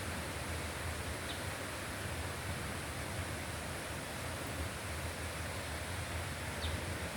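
Steady rushing noise of flowing water, with two or three faint, short, high chirps.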